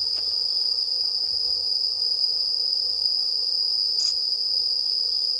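A chorus of night insects trilling in one steady, unbroken high tone, with a single brief click about four seconds in.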